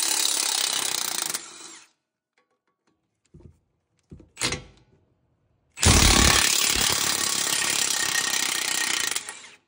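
Cordless impact wrench hammering out the 18 mm brake caliper bracket bolts: one run that dies away about two seconds in, a few light clicks, then a second run of about three and a half seconds starting near six seconds in.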